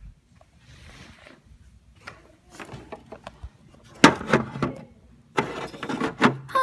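Handling noise: soft rustling and knocks as a handheld camera is carried and moved, then louder clattering and knocking of the camera and plastic toys being set down, starting about four seconds in.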